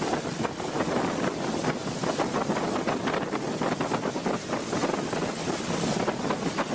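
Fast-flowing floodwater rushing around a half-submerged bus, with wind buffeting the microphone in a steady, fluttering rush.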